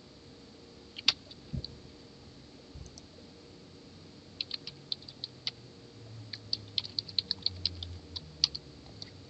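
Typing on a computer keyboard in two quick runs of keystrokes, with a single sharp click about a second in.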